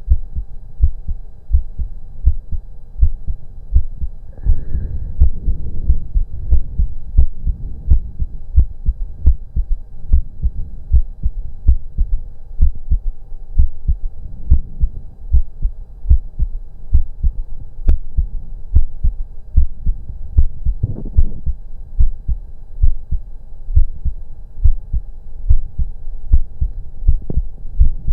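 A person's heartbeat heard through a stethoscope: a steady, regular run of low thuds in lub-dub pairs, with a faint steady hum underneath.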